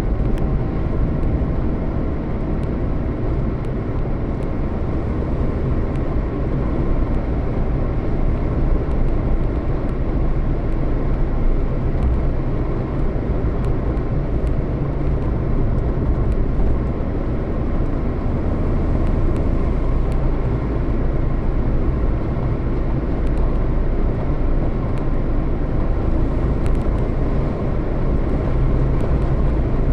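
Steady engine and road rumble of a moving vehicle, heavy in the low end, holding level throughout without a break.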